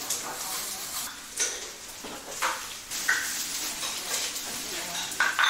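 Egg pancake frying on a flat griddle, a steady sizzle, with a few short scrapes and clinks of a metal utensil against the pan.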